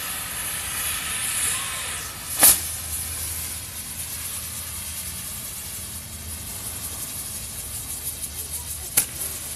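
1980s Link Triad 'Happy Lamp' firework fountain spraying sparks with a steady hiss. A sharp pop comes about two and a half seconds in and another near the end, with light crackling late on.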